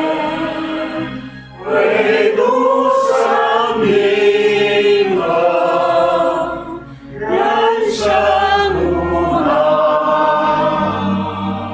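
A Chinese Christian hymn sung by a choir over sustained low accompaniment, in two long phrases with a short break between them about a second and a half in and again around seven seconds.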